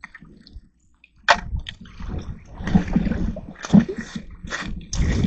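Water splashing and sloshing: a sharp splash about a second in, then continued uneven splashing with dull low thumps.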